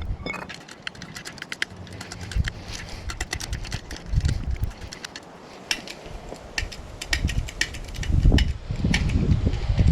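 Scattered light clicks and clinks of hand work on metal parts of an engine hoist's hydraulic cylinder, with low rumbling thumps growing near the end.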